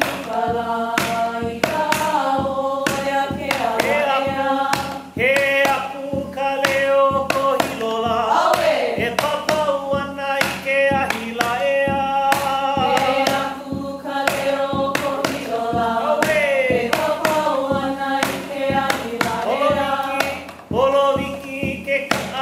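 Hawaiian mele for hula, chanted by voices over a steady percussion beat, with long held notes that slide down at the ends of phrases.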